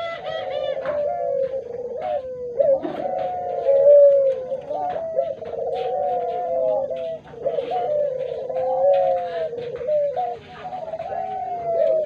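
Several Barbary doves (ringneck doves) cooing without a break, their coos overlapping one another.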